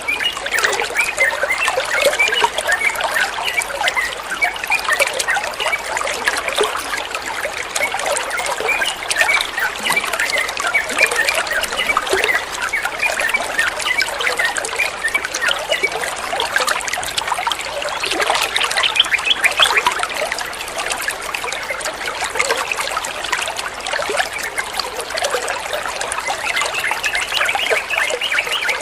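Water trickling and splashing steadily, a dense stream of small bubbling drips and splashes.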